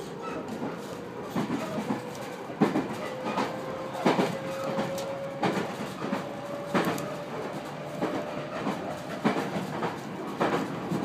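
Interior sound of a 213 series electric train rolling slowly over rail joints: irregular clacks of the wheels on the joints, about one every second, over a steady rumble, with a thin tone rising slowly in pitch.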